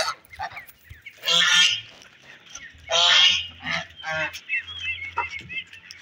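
Domestic white goose honking loudly, two long harsh honks about a second and a half apart with shorter calls between, as it clamours for food. Faint high cheeps from chicks come in about two-thirds of the way through.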